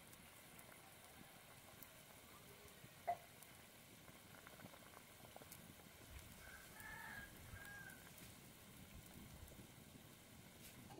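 Small-fish and brinjal curry bubbling faintly at a rolling boil in an open metal kadai over a wood fire. A single sharp click comes about three seconds in, and a faint bird call near the middle.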